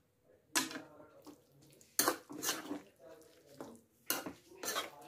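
A metal stirring utensil scraping and knocking against a metal kadhai as thick jackfruit curry is stirred, in about five sharp strokes with softer scraping between.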